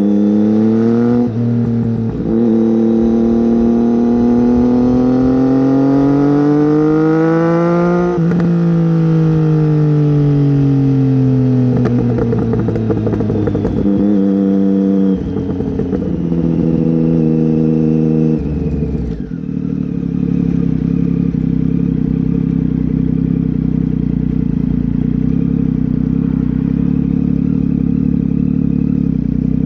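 Triumph Tiger 800 XC's three-cylinder engine, breathing through a slip-on silencer with the catalytic converter removed, being revved. The revs climb slowly for several seconds, then fall back, with a few shorter blips after that. About two-thirds of the way through, the engine drops to a steady idle.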